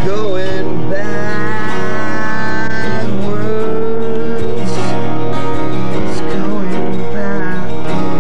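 Live acoustic music: two acoustic guitars strummed together, with a voice holding long, wavering sung notes over them.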